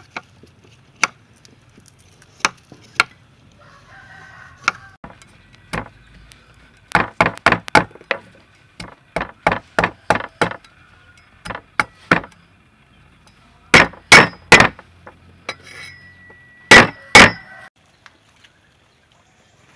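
Cleaver or heavy knife chopping on a wooden board: sharp strikes in uneven clusters, some in quick runs of four to six, the loudest blows near the end.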